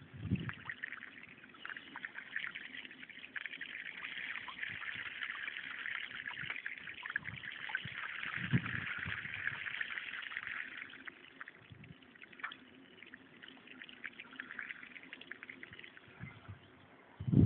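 Shallow floodwater splashing and trickling as something moves through it over a paved road: a steady hiss of spray for about ten seconds, then quieter.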